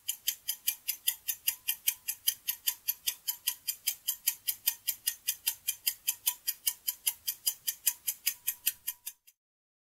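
Countdown timer sound effect: fast, even clock ticking, about five ticks a second, that stops about nine seconds in.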